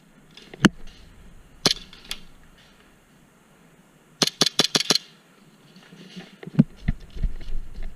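Airsoft guns firing: a few single sharp shots, then a rapid burst of about seven shots in under a second, followed by a few duller knocks near the end.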